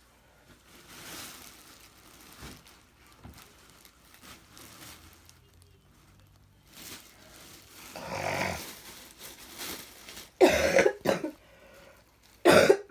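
A person coughing: two short, loud coughs near the end, after fainter sounds earlier.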